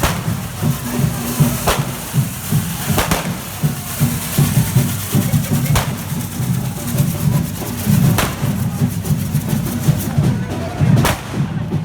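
Correfoc drum band beating a dense, steady rhythm on deep bass drums, with five sharp bangs spread through it a couple of seconds apart.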